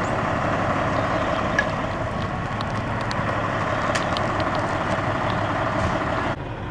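Heavy vehicle engine running steadily with passing road traffic as fire apparatus and patrol cars go by. About six seconds in it cuts off suddenly to quieter traffic noise.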